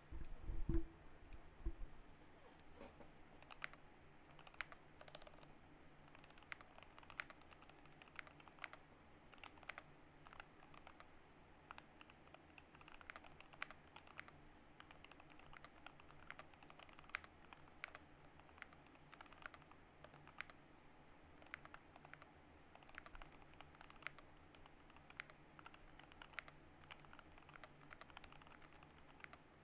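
Typing on a GK61 mechanical keyboard with optical Gateron Yellow switches and swapped-in heavier Outemu red springs: irregular keystroke clicks throughout, with a loud low thump about a second in.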